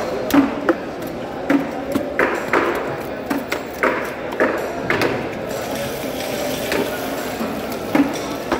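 Knife chopping and hacking through a large yellow trevally's head on a wooden cutting block: irregular knocks, some with a short metallic ring, most of them in the first five seconds.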